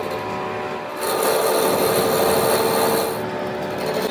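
Power tool working metal, a steady rasping grind with a hum under it. The high hiss comes in about a second in and drops out near the end.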